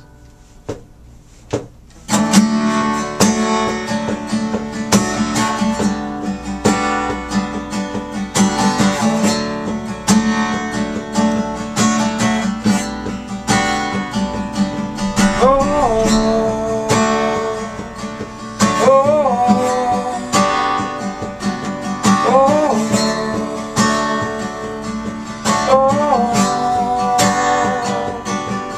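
Steel-string acoustic guitar strummed in steady chords after a quiet pause of about two seconds, an instrumental break in the song. In the second half a rising, sliding note comes back every three to four seconds over the strumming.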